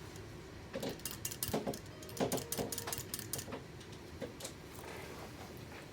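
Vibroplex semi-automatic telegraph key ('bug') clicking as its paddle is worked by hand: a quick, uneven run of metallic clicks from about one second in to three and a half seconds, then a couple more in the middle.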